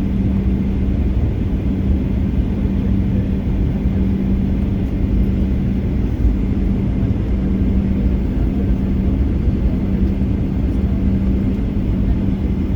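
Boeing 737-800 in flight: a steady rumble of engines and airflow with a constant low hum, level and unchanging.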